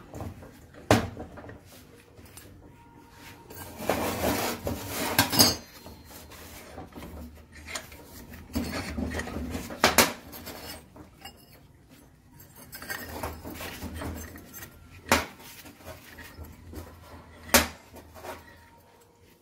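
Hand work on a steel bench vise: clinks and clanks of its sliding T-bar handle, jaws and a steel plate knocking together, with rough scraping stretches and about five sharp metallic knocks spread through.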